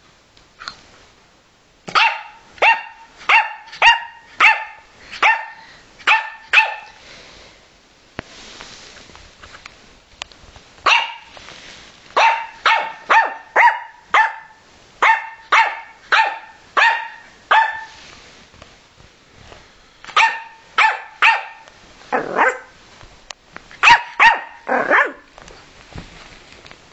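Yorkshire terrier puppy barking in three bouts of short, sharp, high-pitched barks, about two a second, with pauses of a few seconds between the bouts.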